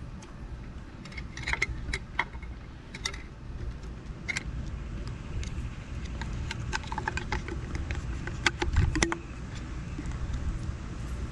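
Sharp plastic clicks, taps and rattles of wires as a controller and battery balancer are pushed back into an e-bike's frame compartment and its plastic cover plate is pressed shut, in two bunches, the loudest clicks about three-quarters of the way through. A steady low rumble runs underneath.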